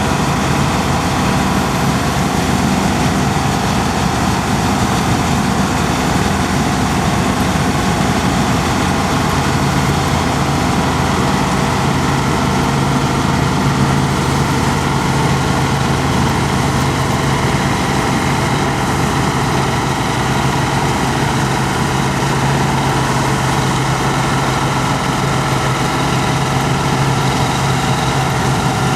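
New Holland Clayson 8060 combine harvester running steadily, a loud, even drone of heavy machinery.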